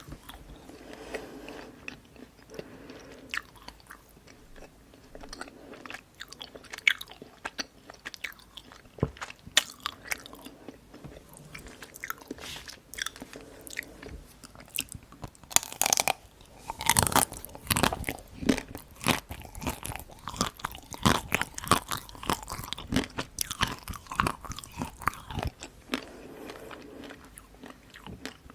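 Close-miked chewing and crunching of dark-chocolate-coated Tico ice cream bites, the hard coating cracking between the teeth in many irregular crunches. The crunching is densest and loudest about halfway through.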